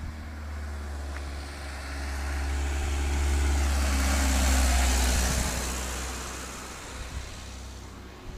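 A Citroën Berlingo van driving past at close range. Its engine and tyre noise grow louder to a peak about four to five seconds in, then fade as it moves away.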